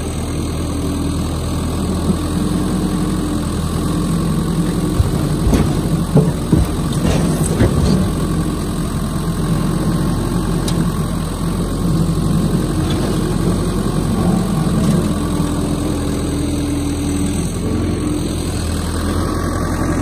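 Case skid steer's engine running steadily while its bucket is tipped. About five to eight seconds in, several heavy thuds sound as oak firewood blocks tumble from the bucket into a truck bed.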